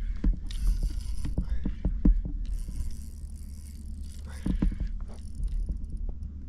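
Fishing reel being worked during a fight with a hooked corvina: irregular mechanical clicks from the reel with stretches of hiss and water noise, over a steady low wind rumble on the microphone.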